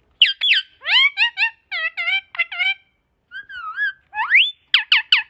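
Pet parrot giving a rapid run of short whistled chirps, many sweeping up or down in pitch, with a longer rising whistle a little past four seconds in.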